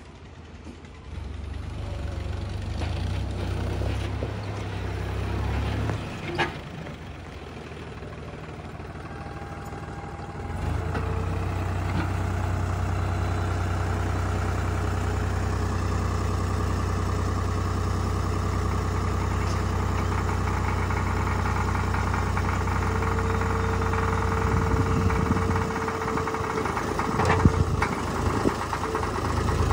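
Sonalika 35 DI RX tractor's diesel engine running steadily under load while it raises the hydraulic tipping trailer to dump its load of soil. A few knocks near the end.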